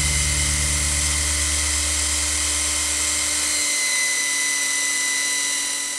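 Benchtop belt sander running steadily, with a high hiss and whine as the edges of a small wooden frame are sanded smooth of glue and rough spots. A low hum drops out a little over halfway through, and the sound fades near the end.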